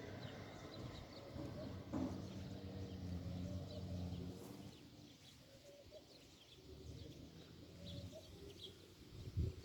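Faint outdoor nature ambience: small birds chirping now and then, over a low, steady pitched drone in the first half that fades out about halfway through.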